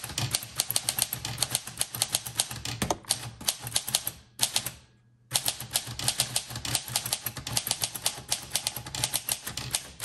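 1934 Corona Sterling flat-top manual typewriter being typed on: a fast run of sharp keystroke clicks, several a second, as the carriage steps along the line. There is a short break about four and a half seconds in before the typing resumes.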